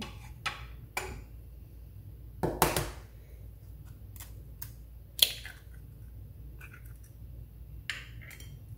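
Eggs being cracked open over a bowl of flour: a handful of short, sharp taps and shell cracks, the loudest about two and a half and five seconds in.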